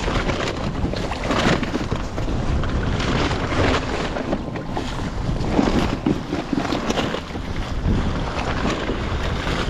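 Wind buffeting the microphone, with choppy sea water splashing and sloshing around a kayak, in an unbroken rush with irregular swells.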